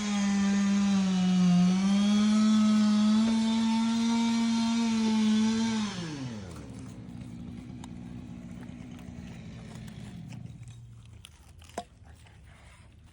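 Chainsaw engine running at high revs with a steady pitch, then the throttle is released about six seconds in and the pitch falls away sharply. A fainter engine drone carries on until about ten seconds in, and a single sharp click comes near the end.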